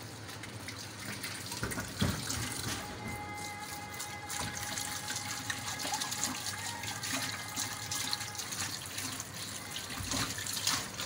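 Tap water running steadily onto plates being rinsed by hand over a stainless steel sink, with one sharp knock about two seconds in.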